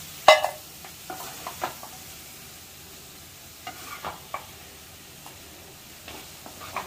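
Spoon stirring mutton pepper fry in a pan, with a steady sizzle as the nearly dry mutton fries. The spoon scrapes and knocks against the pan now and then, loudest in one sharp clack just after the start.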